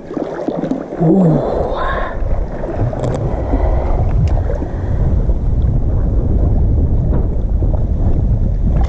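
A pike splashes at the surface near the start as it swims off from a float tube. After that comes a steady low rumble of wind on the microphone, mixed with water sloshing against the float tube.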